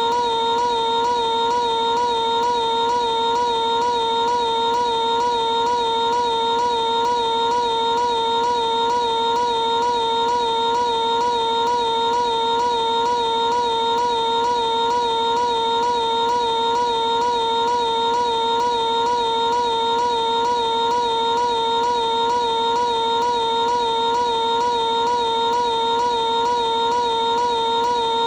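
Piglet's high-pitched cartoon scream, a tiny snippet looped over and over into one unbroken, slightly wavering tone.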